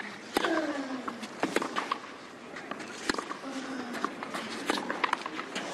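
Tennis ball struck back and forth by racquets in a baseline rally on a clay court: sharp hits, the loudest coming about every one and a half seconds, with smaller clicks between.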